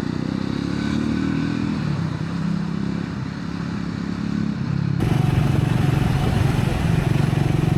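Triumph Scrambler 400 X's single-cylinder engine running steadily at cruising speed, heard from the rider's position with wind rushing past. About five seconds in the sound turns abruptly louder, with more wind hiss.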